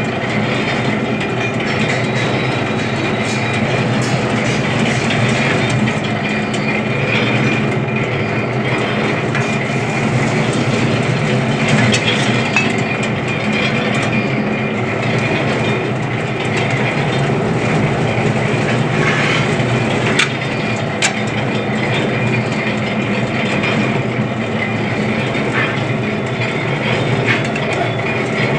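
Powered sheet rolling machine running steadily: its motor and gear drive hum with a constant mix of tones, with scattered clicks and clanks as a metal sheet is rolled between its rollers.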